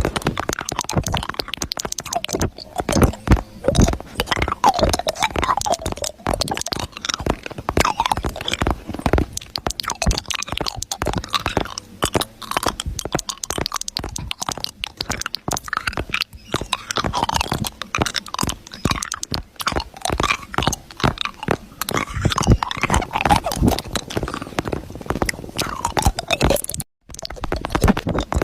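Dense, irregular crunching and crackling, a steady stream of small sharp clicks, broken once by a brief dead gap near the end.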